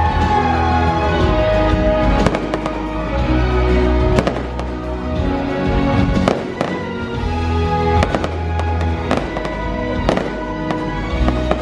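Fireworks bursting with sharp bangs every second or two over the show's loud soundtrack music.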